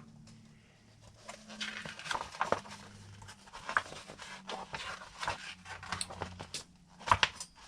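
Scattered light clicks and rustles of hands handling the RC crawler's parts and packaging, over a faint steady hum.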